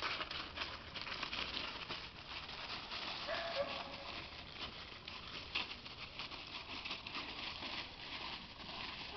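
Dry fallen leaves crunching and rustling under the footsteps of a person and a wolf hybrid walking through them, a steady irregular crackle. A brief pitched vocal sound comes a little over three seconds in.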